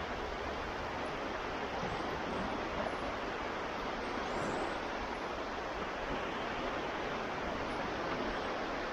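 Gentle Baltic Sea waves washing onto the shore, a steady, even surf.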